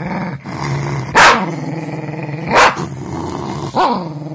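Small white spitz-type dog growling steadily, with three sharp barks about a second and a half apart. It is guarding its food from the owner trying to take it away.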